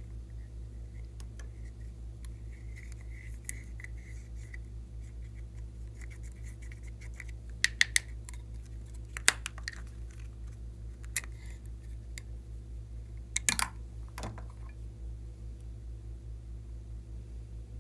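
A small stick scraping pressed eyeshadow out of a plastic makeup palette, with sharp clicks and taps of the plastic palette between about 7 and 14 seconds, over a steady low hum.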